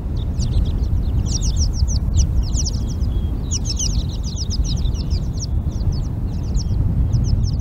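American pika calling: a rapid series of short, high squeaks in runs of a second or so with brief gaps between them, over a steady low rumble.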